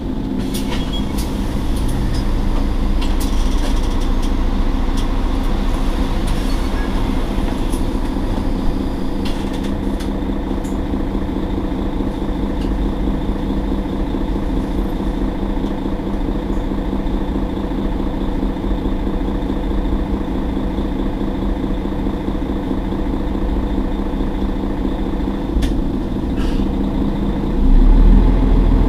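Mercedes-Benz Citaro G C2 articulated city bus idling steadily at a stop, its engine giving a constant hum. The low rumble grows louder near the end.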